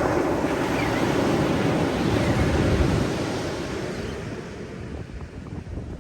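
Ocean waves washing on the shore: a wave surges in at the start, stays loud for about three seconds, then slowly draws back. Wind buffets the microphone as a low rumble underneath.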